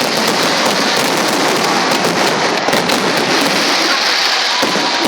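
Fireworks crackling: a dense, continuous stream of rapid small cracks without pauses.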